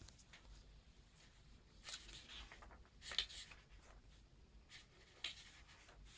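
Faint paper rustles as the pages of a comic book are turned, with soft swishes about two, three and five seconds in.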